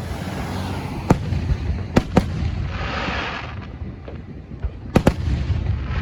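Fireworks show: aerial shells bursting with sharp bangs, five in all, two of them in quick pairs, with a hissing crackle from a crackling shell around the middle and a steady rumble of the display underneath.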